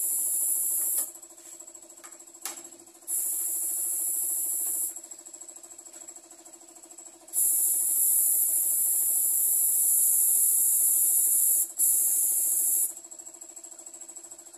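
Spray gun hissing in spells as its trigger is pulled and released, spraying varnish onto wooden furniture: a short spray ending about a second in, another of about two seconds, then a long one of about five seconds near the end, over the steady hum of an air compressor.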